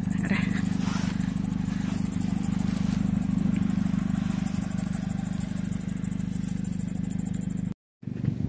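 Car engine idling steadily just after being started in the cold, a constant low hum. The sound drops out briefly near the end.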